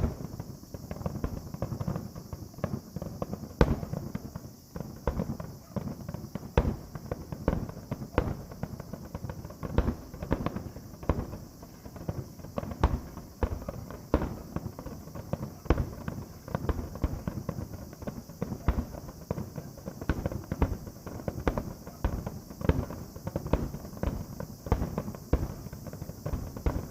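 Fireworks finale barrage: a dense, unbroken run of distant shell bursts, several booms and cracks a second.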